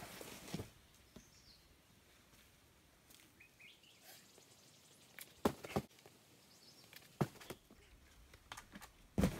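Boulderer on the rock: a crash pad rustles as it is shifted into place at the start, then sharp slaps and knocks of hands and shoes on the rock during the climb, and a heavy thump about nine seconds in as he drops off onto the pad after missing the move. Faint bird chirps sound in the background.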